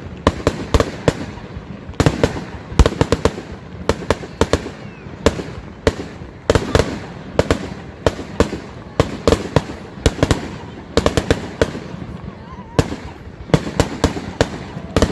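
Fireworks display going off: rapid, irregular bangs and crackling pops, several a second, coming in clusters.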